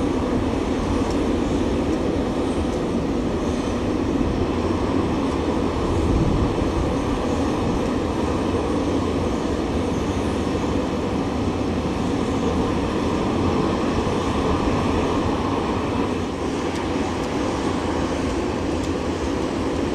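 Jet airliner engines running at taxi power close by, a steady noise that hardly changes.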